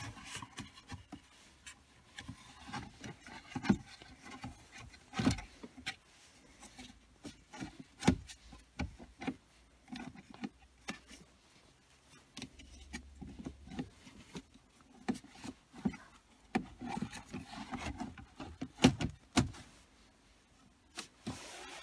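Plastic centre-console trim and storage tray of a Jaguar X-Type being fitted back into place by hand: scattered clicks and knocks with plastic rubbing on plastic, a few louder knocks among them.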